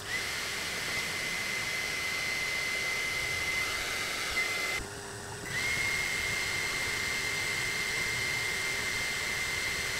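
Ortur Laser Master H10 laser engraver running: a steady hiss with a constant high whine. Both drop out for about half a second roughly halfway through.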